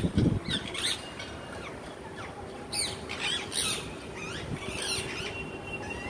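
Parakeets screeching in short, sharp calls that sweep up and down in pitch. They come in several bursts: at the start, near one second, around three to four seconds, and again near five seconds.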